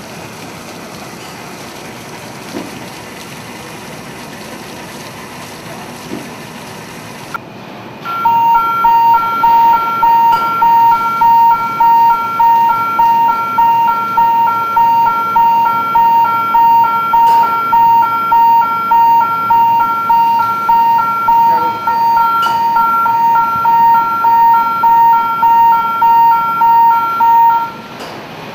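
Steady hiss of a water jet spraying onto the floor at a filter press. About eight seconds in, a loud electronic warning beeper starts, pulsing rapidly at about one and a half beeps a second, and stops shortly before the end.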